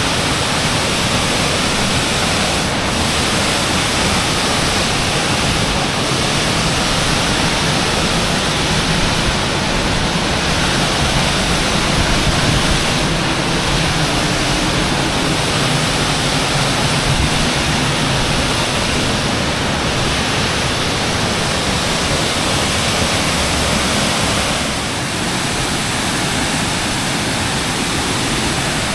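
Waterfall: falling water rushing loudly and steadily, with no break.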